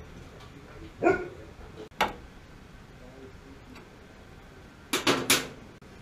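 A dog barking: one short bark about a second in and a quick run of two or three barks near the end, with a single sharp click just after the first bark.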